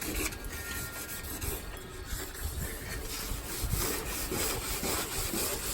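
Wet sandpaper rubbed by hand over a carbon fiber hood in repeated back-and-forth strokes, scrubbing off old sun-damaged clear coat.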